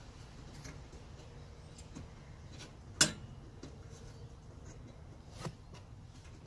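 Small clicks and taps of gloved hands and a tool working on the metal casing and connectors of a car's hybrid battery pack. There is one sharp click about three seconds in and a smaller one near the end.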